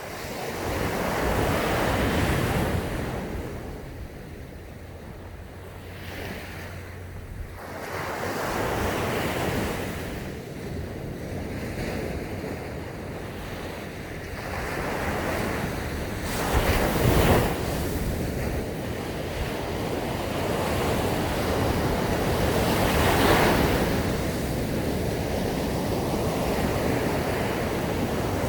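Sea waves breaking and washing up a sandy beach, the surf swelling and fading every several seconds. The sharpest, loudest break comes a little over halfway through.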